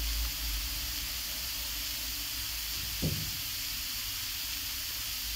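Steady tape hiss of a Sony Walkman WM-FX1 playing a blank stretch of cassette where no next track follows, most likely the end of the recording on this side. One short knock about three seconds in.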